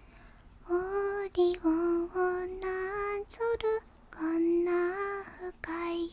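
A woman singing softly and unaccompanied, a string of short held and gliding notes that begins under a second in.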